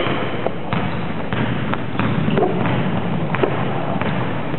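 Basketball dribbled on a wooden gym floor: a run of sharp bounces, a few each second, over the steady background noise of the hall.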